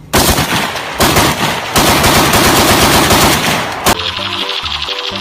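AK-47-style automatic gunfire in three rapid bursts, the last and longest lasting about two seconds, ending in a sharp click. Music comes in at about four seconds.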